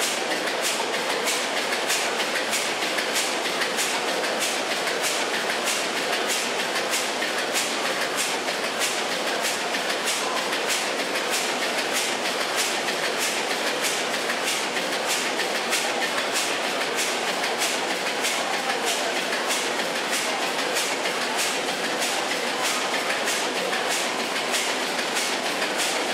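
Machinery running steadily, with an even mechanical clatter and a sharp click about twice a second.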